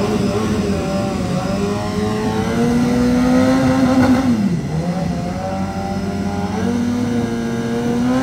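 Superbike engine revving: the pitch climbs and holds high, drops sharply about four and a half seconds in, then climbs again near the end.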